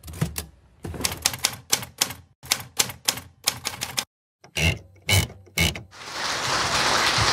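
Mechanical typewriter keys clacking in quick, uneven strokes, a brief pause, then three heavier strikes. About six seconds in, audience applause swells up.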